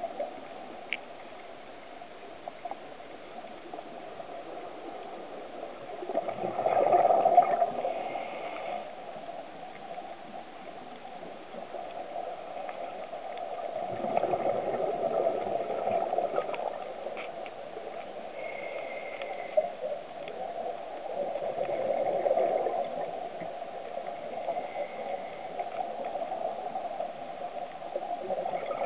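Scuba diver's regulator exhaust bubbles gurgling underwater, in three louder swells about seven to eight seconds apart over a steady hiss.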